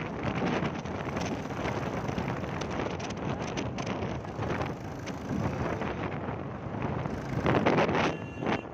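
Wind rushing over the microphone with road and traffic noise from a vehicle travelling at speed, getting louder for a moment near the end.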